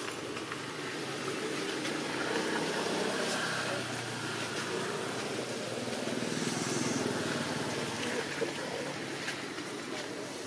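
A low, steady outdoor rumble that swells and fades twice, with faint voices in the background.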